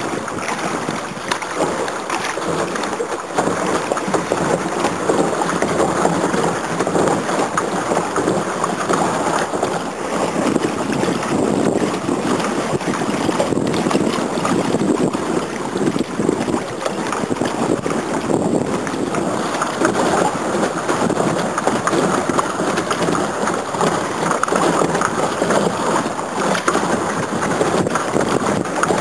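Water splashing and lapping as a wooden radio-controlled model sailing yacht's hull cuts through small waves, with wind buffeting the microphone throughout.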